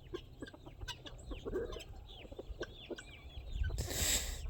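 A flock of chickens and guinea fowl clucking and calling in many short, scattered calls, with a brief rustling noise near the end.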